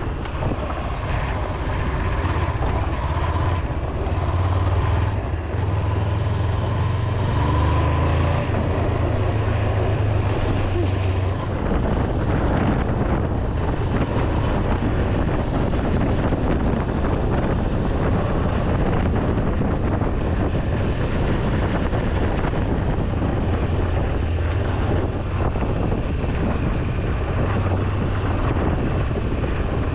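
Honda CB500X parallel-twin engine running under way, with wind rushing on the microphone. About eleven seconds in, the steady low engine drone gives way to a rougher, noisier rumble.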